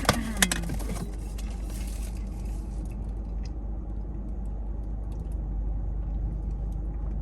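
Steady low road and engine rumble inside a moving car, with a few sharp clicks in the first half second.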